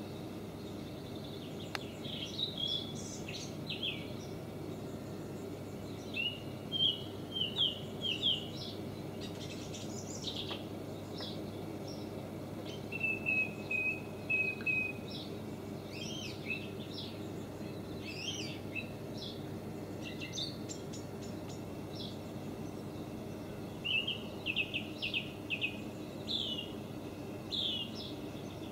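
Wild birds chirping and calling in short, scattered phrases, with a brief trill partway through, over a steady low hum.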